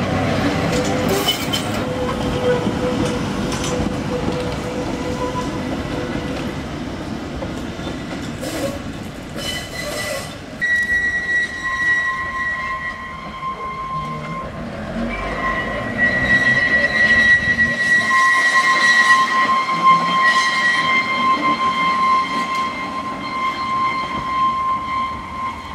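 Manx Electric Railway electric tramcars running on the track: first a low rumble with a faint whine, a few sharp clicks about eight to ten seconds in, then a steady high-pitched wheel squeal in two pitches that lasts nearly to the end as 'Winter Saloon' No. 21 runs through the curve.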